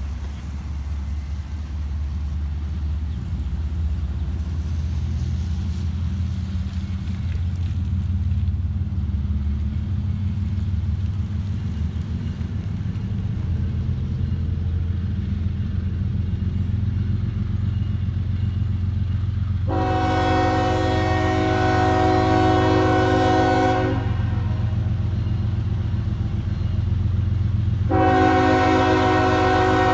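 CSX diesel locomotive hauling a loaded coal train, its engines a steady low rumble as it approaches. Its air horn sounds several notes at once: one long blast about two-thirds in, then another starting near the end, the start of a grade-crossing signal.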